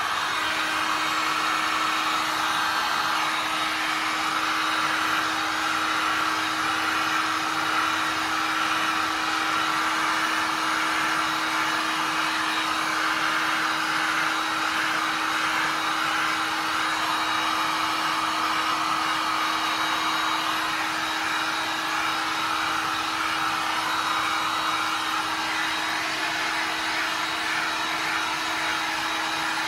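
Electric heat gun blowing hot air over wet poured resin: a steady rushing of air with a constant motor hum.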